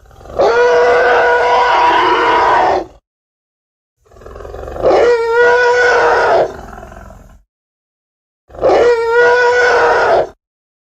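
Designed sound effect of a large sauropod dinosaur calling: three long pitched roaring calls with strong harmonics, the first two about three seconds each and the last shorter, about two seconds.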